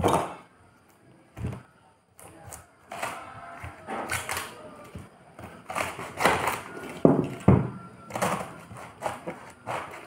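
Cabbage leaves being torn off the head by hand: irregular crisp snapping and crunching, with a few sharper knocks of the cabbage against a wooden chopping board, the loudest two about seven seconds in.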